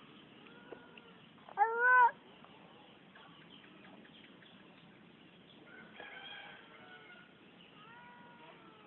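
Domestic cat meowing: one loud meow about a second and a half in, its pitch rising and falling, followed by fainter calls later on.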